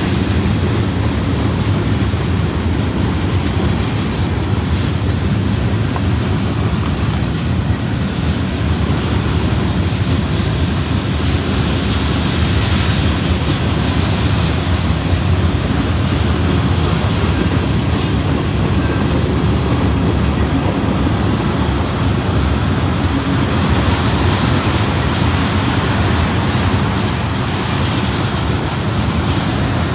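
Freight train of tank cars and covered hopper cars rolling past, a steady loud rumble of steel wheels on rail.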